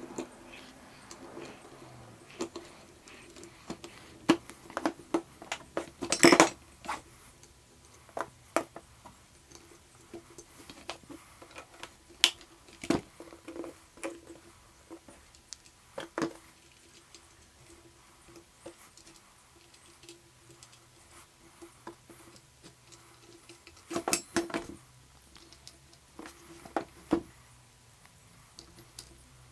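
Scattered clicks, clinks and knocks of metal and polymer parts and a screwdriver as a vertical grip is screwed onto an aluminium rifle chassis. The loudest clatter comes about six seconds in and again about 24 seconds in, over a faint steady hum.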